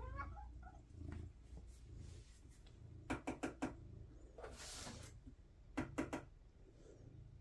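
A short faint cat call at the start, then a quick run of four sharp taps about three seconds in, a brief rustle, and three more taps about six seconds in.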